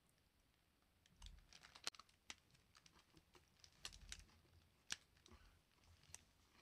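Faint, scattered crinkles and clicks of a paper burger wrapper being handled, with a couple of soft low thumps.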